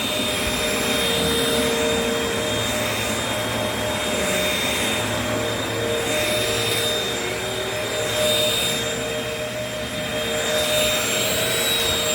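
Vacuum cleaners running steadily with a constant motor whine, sucking up crumbs from the floor.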